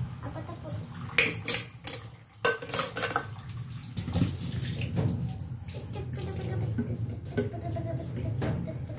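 Dishes being washed in a stainless steel kitchen sink: plastic cups and bowls clattering and knocking against each other and the sink, with the tap running. The knocks are sharpest in the first few seconds, after which the running water is steadier.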